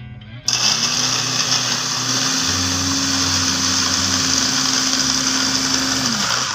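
Electric hand blender with its chopper bowl attachment running, its blade chopping red onions. The motor starts about half a second in, runs steadily with a slight rise in pitch, and winds down near the end.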